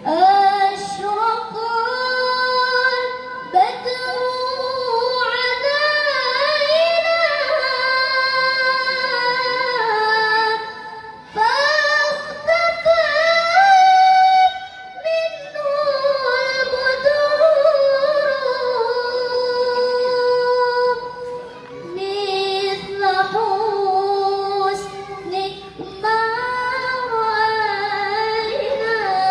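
A young woman's voice reciting the Qur'an in the melodic tilawah (qiraah) style through a microphone and loudspeakers. She holds long notes with wavering ornaments and pauses for breath several times.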